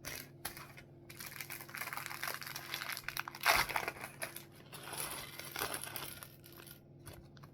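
Plastic Lego parts bag being handled and crinkled, with small clicks of loose pieces and a louder rustle about three and a half seconds in.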